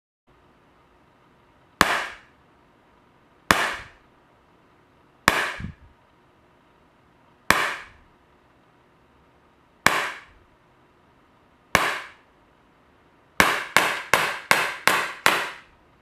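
Daisy Winchester Model 11 CO2 blowback BB pistol firing: six single shots about two seconds apart, then about six shots in quick succession near the end.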